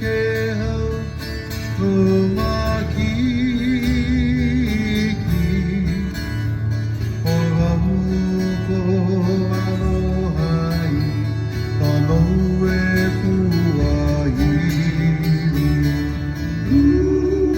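Live Hawaiian band music: acoustic guitars playing under a melody line with vibrato.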